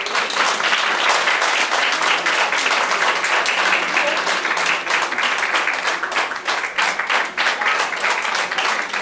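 Audience applauding: many people clapping together, dense and sustained.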